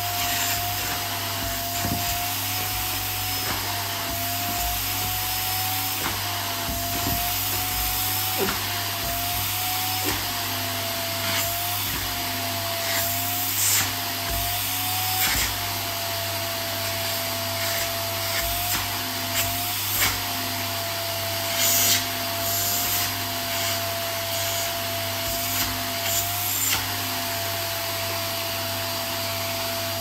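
Canister vacuum cleaner running steadily. Its motor tone shifts slightly in pitch now and then as the open hose end is held against jeans and bare feet, with brief rubbing bumps from the hose, the loudest a little past the middle.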